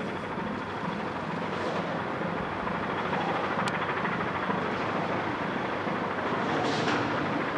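Diesel engine of a gravel carrier ship (grab-crane sand and gravel vessel) running as it passes, a steady low throbbing drone with a rush of noise over it.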